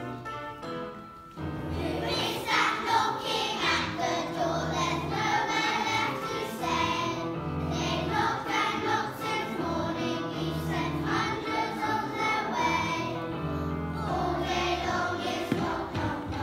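A song starts about a second and a half in: a children's choir singing over a backing track with a steady bass line.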